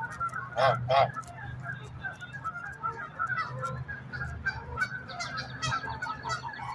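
A flock of geese calling: two loud honks close together about half a second in, over steady chatter from many birds.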